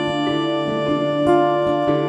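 Instrumental background music: a keyboard melody of notes changing every fraction of a second over a steady held low note.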